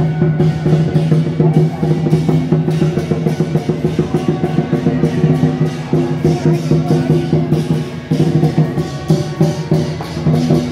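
Lion dance percussion: drum, cymbals and gong beating in a fast, continuous rhythm, with a steady low ringing underneath.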